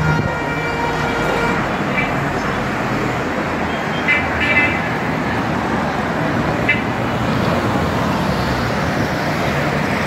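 Steady noise of busy city road traffic: passing cars and buses. Short car-horn toots sound about four to five seconds in and again near seven seconds.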